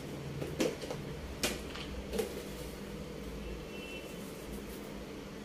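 Steady low hum with four or so light clicks and taps in the first half, from kitchen handling at a frying pan of thick sauce on a gas stove.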